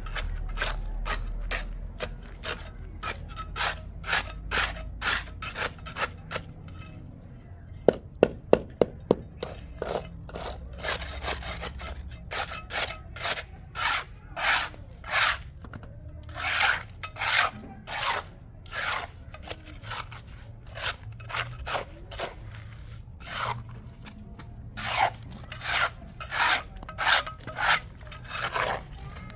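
Repeated scraping strokes, about two a second, with brief pauses, and a few sharp clicks about eight seconds in.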